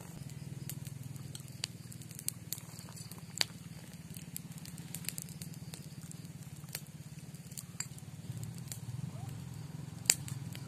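Scattered sharp clicks and crackles over a steady low hum, with the two loudest clicks about three seconds in and near the end.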